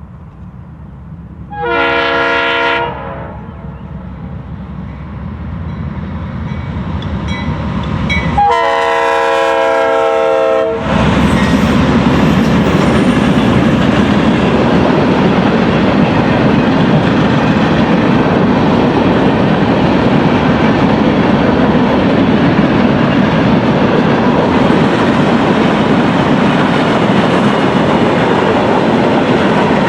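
Freight train passing at a grade crossing: a diesel locomotive's multi-chime air horn sounds a short blast about two seconds in and a longer one around nine seconds, while the engines grow louder. Then comes the steady rumble of the passing train, with wheels clacking on the rail joints.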